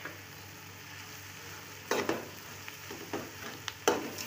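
Shredded cabbage, carrots and peppers frying in oil in a large metal pot, with a steady hiss. From about two seconds in, a perforated metal spoon stirs through them, scraping the pot several times.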